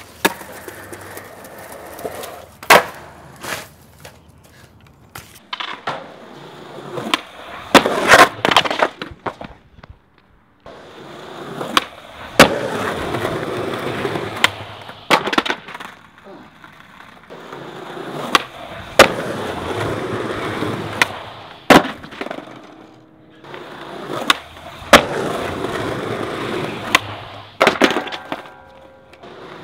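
Skateboard wheels rolling on concrete, broken up again and again by sharp clacks of the tail popping and the board landing or slapping down on the ground.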